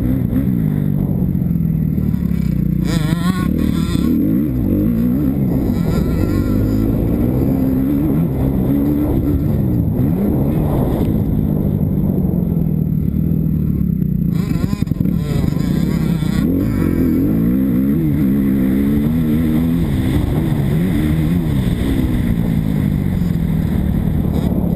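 Kawasaki KX250F four-stroke single-cylinder motocross engine under hard riding, its pitch rising and falling over and over as the rider accelerates, shifts and rolls off for corners.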